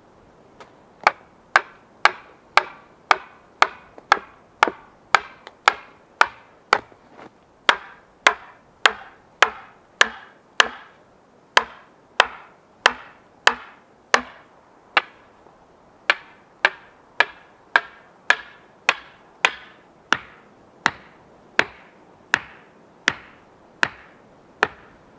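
Axe pounding sharpened wooden stakes into the ground: a steady run of sharp wooden knocks, about two a second, each ringing out briefly, with a short pause partway through.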